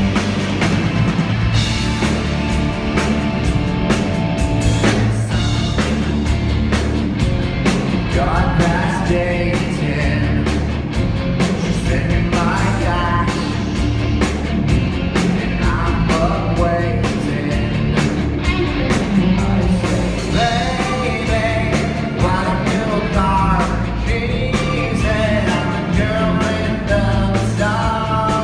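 Rock band playing with a lead singer, with bass, drums and guitar throughout and vocals coming in about eight seconds in.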